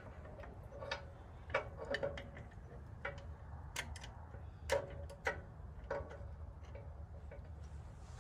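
About a dozen irregular metallic clicks and clinks, each with a short ring, as bolts and a hand tool knock against the steel winch mounting bracket.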